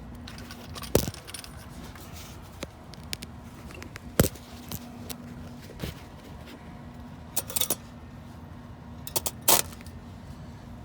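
Stick-welding arc striking and sputtering in short crackles on a car's exhaust, with two brief crackling runs near the end, over a steady low hum. The arc keeps breaking off instead of holding a steady sizzle.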